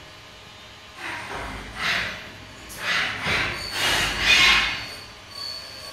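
Trident CNC vertical machining center running a cycle: a hissing machining noise swells and fades four times, the last swell the loudest, over a faint high steady whine that comes and goes.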